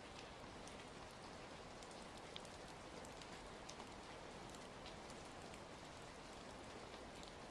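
Quiet, steady rain ambience, with scattered small crackles of a wood fire mixed in.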